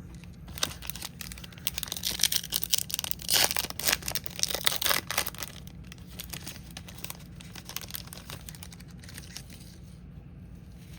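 A Topps Finest trading-card pack wrapper being torn open and crinkled, a dense crackling that is loudest in the first half. It gives way to lighter, sparser rustling as the cards are handled.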